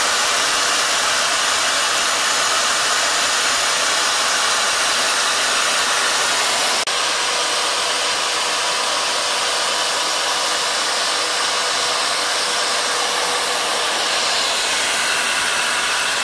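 Handheld die grinder running steadily with a small cleaning bit worked around the combustion chambers of a BMW M10 aluminium cylinder head. There is a brief dip in the sound about seven seconds in.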